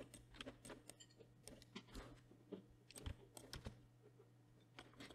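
Faint, irregular clicks of a computer keyboard and mouse as shortcut keys are pressed and controls are dragged, over a low steady hum.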